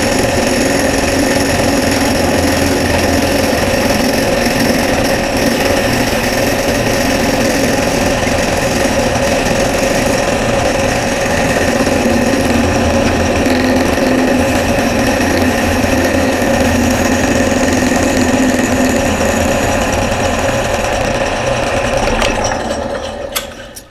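Drill press running a half-inch square end mill through a pine board: a steady motor and spindle hum with the hiss of the cutter chewing wood. The sound dies away near the end as the machine winds down.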